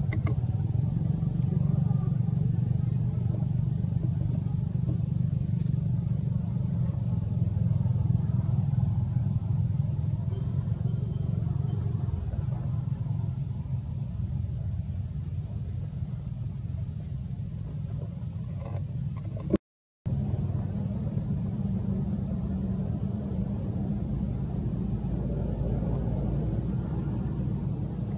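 A steady low rumble that runs without a break, cutting out for a split second about twenty seconds in.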